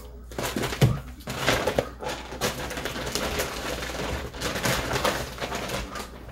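Rustling and crinkling of a large reusable shopping bag and packaging being handled, with a few light knocks as items are moved.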